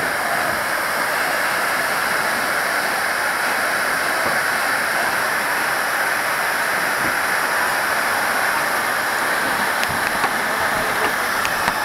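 Fire hose nozzle spraying a steady rushing stream of water, with a few faint crackles near the end.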